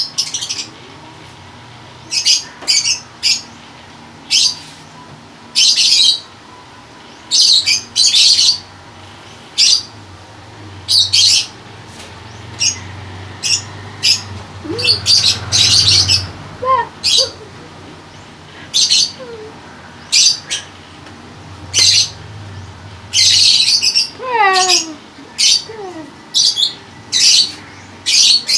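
Small birds chirping over and over, short sharp high chirps in quick clusters every second or so, with a few falling whistled notes near the end.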